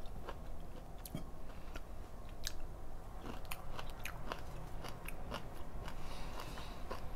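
A person chewing a mouthful of food close to a lapel microphone, with many small clicks from the mouth.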